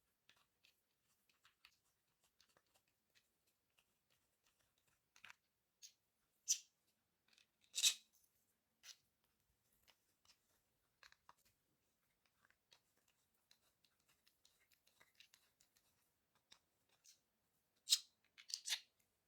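Faint, scattered small clicks and scrapes, with a few sharper clicks about six and eight seconds in and a quick cluster near the end.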